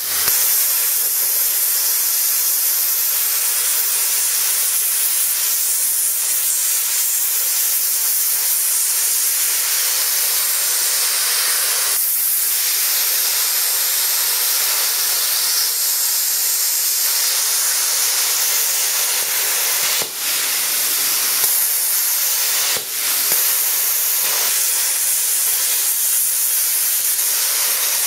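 Budget Chinese handheld plasma cutter running a steady, loud hiss as its arc cuts through a solid mild steel bar about an inch thick, close to the most the small machine can cut. The hiss dips briefly twice about two-thirds of the way through.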